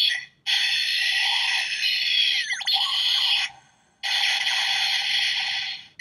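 DX Gashacon Sparrow toy bow's built-in speaker playing its electronic finishing-attack sound effects, which come up as random critical hits. There are two long, tinny, noisy blasts, one of about three seconds and one of about two, with a short break between them. The first has a quick wavering sweep in pitch near its middle.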